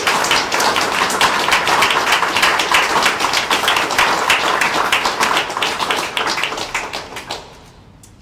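Audience applauding, many hands clapping at once, dying away about seven and a half seconds in.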